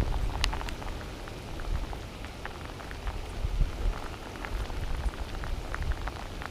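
Hard rain falling close by, an even hiss with many separate drops striking. Under it is a low rumble, strongest at the start.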